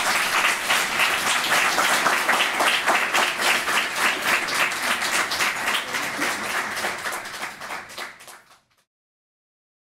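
Audience applauding, fading out near the end and then going silent.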